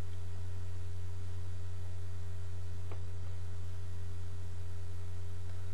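Steady low electrical hum from a poor microphone's recording chain, with fainter higher tones above it. One faint click about three seconds in.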